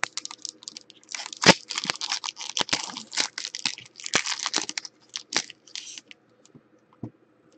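Foil wrapper of a trading-card pack being torn open and crinkled by hand: a dense run of crackling tears and rustles for about six seconds, then a few faint ticks.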